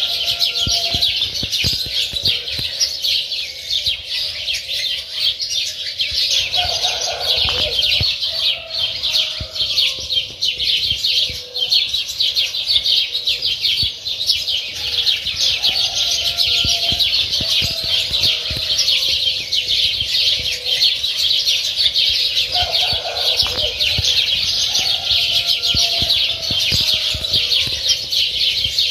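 Many small birds chirping constantly in a dense chorus, with a lower call coming back about every eight seconds.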